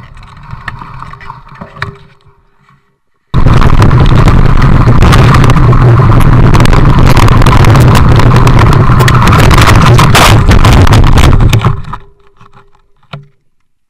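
Very loud, distorted wind and gravel rumble on a mountain-bike rider's action-camera microphone during a fast descent on a gravel forest track. It starts abruptly about three seconds in, after a brief silence, and cuts off suddenly about a second before the end, followed by a single thump.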